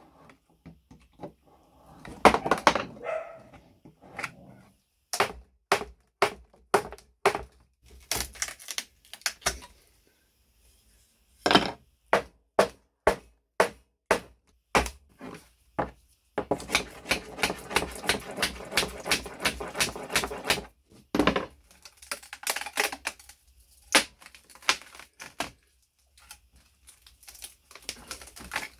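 Repeated sharp knocks and taps, one or two a second at times, with a fast run of quick taps lasting several seconds in the middle.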